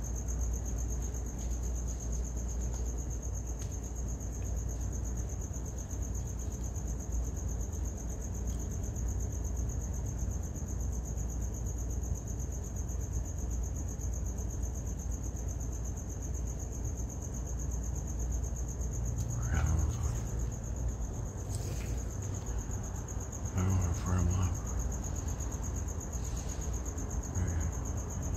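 Crickets chirping in a steady, high-pitched chorus, over a steady low rumble.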